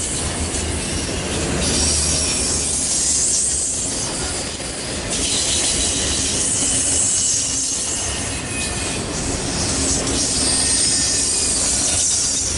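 Freight train of enclosed autorack cars rolling past close by: a steady rumble of wheels on rail, with thin, high wheel squeal that comes and goes.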